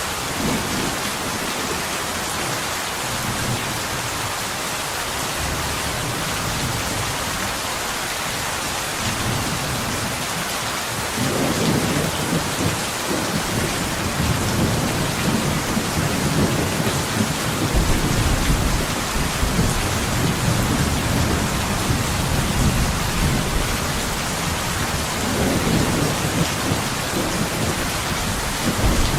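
Steady rain hissing, with low rolling thunder rumbling in about a third of the way through and growing deeper and louder later on.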